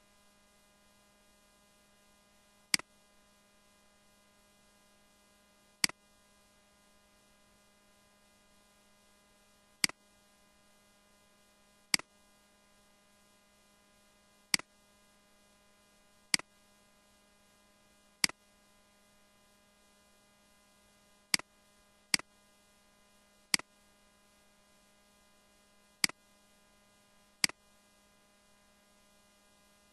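Computer mouse clicking about a dozen times at uneven intervals, over a steady electrical hum.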